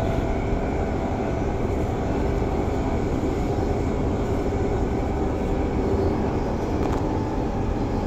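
Transperth B-series electric train running at speed, heard from inside the carriage: a steady rumble of wheels on rail with an even hum over it.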